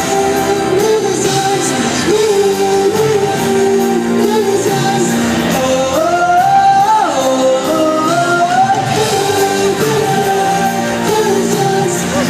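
Live pop band playing amplified in an arena hall, with singing over it; about six seconds in a voice slides up through long held notes.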